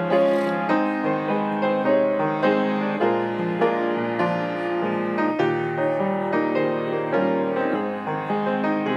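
Piano playing a slow melody over sustained chords.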